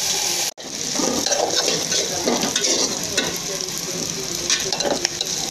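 Soaked broken rice sizzling as it fries in oil in an aluminium pot, with a metal spatula stirring and scraping it against the pot. The sound cuts out briefly about half a second in, then carries on.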